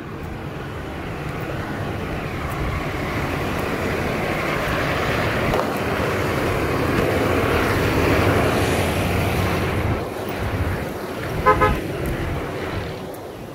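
Steady outdoor traffic noise, with one short car horn toot near the end.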